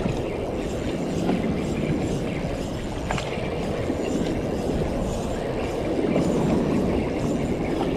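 Fishing reel being cranked steadily to bring in a hooked cabrilla, a continuous rough mechanical whirring, with one sharp click about three seconds in.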